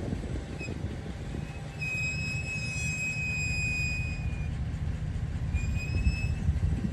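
Ram 1500 pickup's brakes squealing while coming to a stop or just after it, over a low vehicle rumble. A brief chirp about half a second in is followed by a steady high-pitched squeal of nearly three seconds from about two seconds in, and a shorter one near the end.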